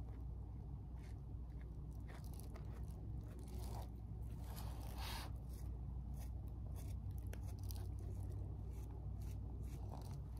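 A tint brush scraping and dabbing bleach paste onto a wig's lace, with the plastic bag under it crinkling in short crackles and one longer scrape about five seconds in, over a steady low hum.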